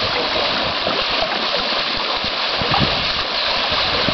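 Horses wading through a deep creek: water splashing and churning around their legs over the steady rush of the stream.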